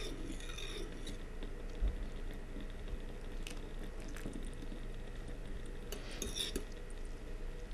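A fork stirring soup in a glass saucepan, with a few faint clinks of metal on glass, while tapioca starch slurry is poured in to thicken it. There is one soft knock about two seconds in.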